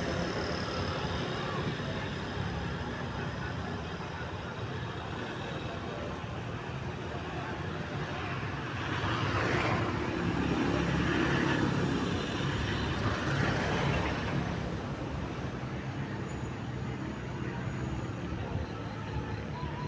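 Roadside traffic noise with an engine running steadily underneath; a passing vehicle swells louder for about six seconds in the middle. No telolet horn melody stands out.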